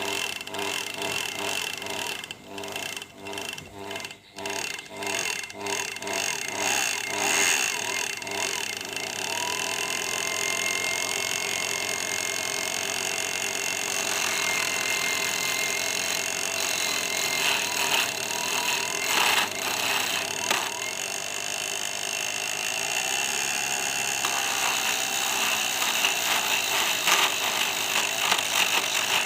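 Small electric mini lathe running, a steady machine noise with high, thin tones from the cutting that come and go. Regular ticking a few times a second in the first several seconds.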